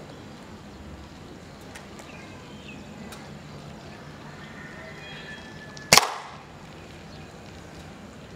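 A single air-rifle pellet strikes the paper target and its wooden backing board about six seconds in: one sharp smack with a short ringing tail.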